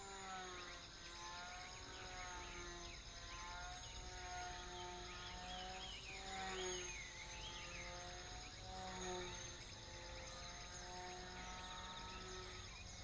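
Small motor and propeller of a sub-100 g tethered RC plane running faintly in flight, its pitch and loudness rising and falling every few seconds as it circles on the tether.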